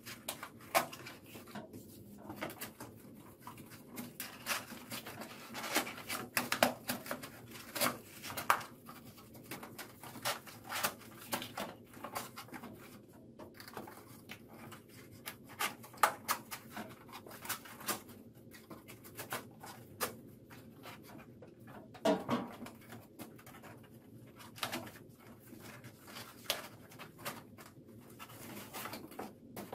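Corrugated cardboard pieces being handled and slotted together: repeated rubbing and scraping of cardboard against cardboard, with sharp taps and knocks now and then.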